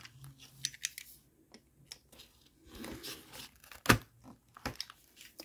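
Cardboard box being handled and its side tape cut and pulled open: faint rustling and tearing with scattered small clicks, and one sharper knock about four seconds in.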